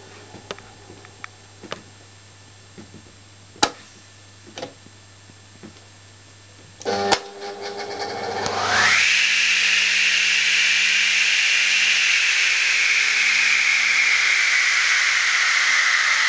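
Scattered clicks and knocks from the DeWalt radial arm saw's open starter switch over a low hum. About seven seconds in, a sharp click as the contactor closes, worked from inside the switch box because the faulty power switch will not start the saw. The single-phase motor then spins the blade up with a quickly rising whine and runs on with a loud, steady whine that eases slightly lower in pitch.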